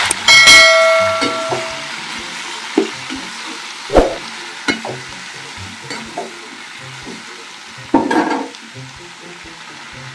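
A perforated metal ladle stirring termite mushrooms in an aluminium pan of hot oil: a loud ringing clang of metal on the pan just after the start, then scattered knocks and scrapes as the sizzle dies down over the first couple of seconds.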